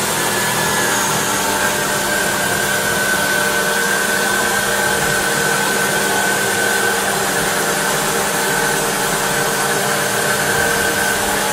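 Subaru Baja's flat-four engine idling with the air conditioning switched on, under a loud steady fan-like whooshing and a thin steady whine, while the A/C system is being recharged with R134a refrigerant.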